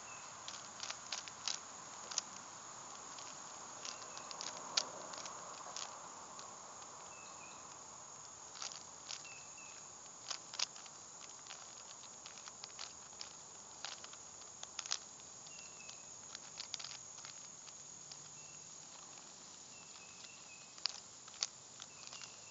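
A plastic Rubik's Cube being turned by hand during a solve: quick, irregular clicks of its layers snapping round, in short clusters with pauses between.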